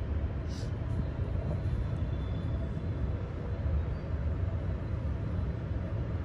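Steady low outdoor background rumble, with a brief faint high-pitched sound about half a second in.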